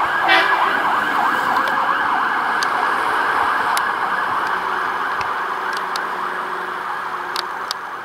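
Scania GBA fire engine's electronic siren sounding a fast wavering wail, slowly fading as the truck moves away. There is a short horn blast just after the start.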